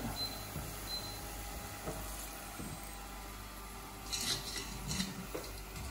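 Light clinks and knocks of metal kitchen utensils, a wire spider strainer and steel pans and bowl, over a steady low background by a saucepan of hot frying oil. Two faint short beeps about a second apart near the start, from the hob's touch controls as the heat is turned down.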